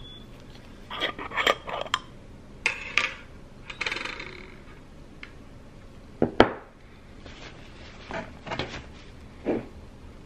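Metal lug cap on a glass jar being twisted open, a run of grating clicks and scrapes, then a sharp knock about six seconds in as the glass jar is set down on a wooden table, followed by a few softer handling sounds.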